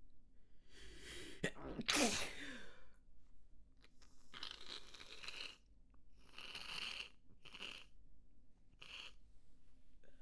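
A person sneezing in a rapid fit. A breath is drawn in, then a loud voiced sneeze comes about two seconds in, followed by a long breathy rush and three shorter, quieter breathy bursts.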